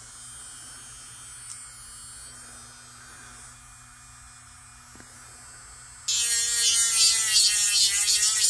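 Electric nail drill motor running at about 15,000 RPM with a quiet steady hum. About six seconds in, the spinning bit is put to a nail tip and a much louder grinding whine starts, its pitch wavering as it sands.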